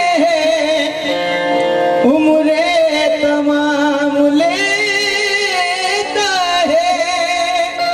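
Qawwali singing: a man's voice singing a long ornamented line with held notes, over a harmonium.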